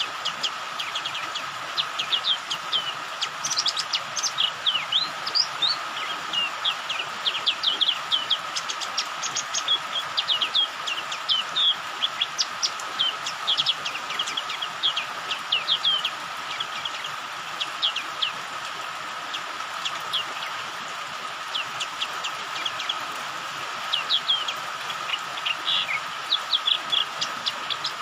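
White-eye (pleci) twittering in quick runs of short, high chirps, with brief lulls. This is the rapid 'ngriwik' lure call used to set other white-eyes singing. Underneath is a steady hiss of rain.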